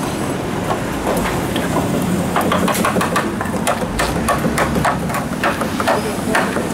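Hammering on a wooden float frame: sharp knocks in a quick, irregular run of about three to four a second, starting a couple of seconds in, over a steady low hum of street traffic.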